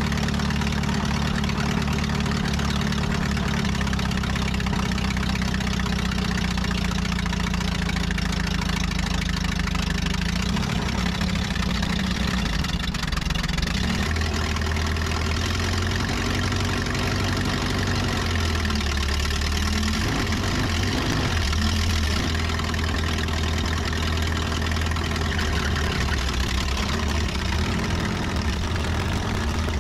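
Allis-Chalmers D17 tractor engine running steadily while its front loader lifts a heavy engine on a chain; about halfway through its note drops and changes as the hydraulics take the load.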